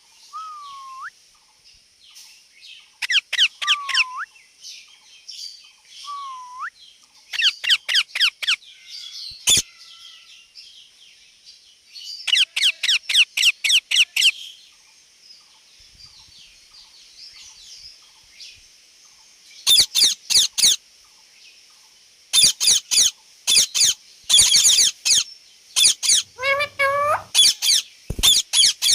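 Parrot calling in bursts of rapid, high-pitched chirps, with a few short whistles near the start that dip and then rise in pitch.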